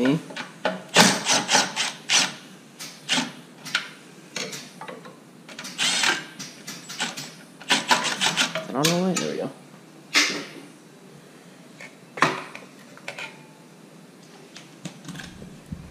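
Hand tools working on a snowblower: short runs of quick clicking and scraping strokes with pauses between, as fasteners and parts are worked loose.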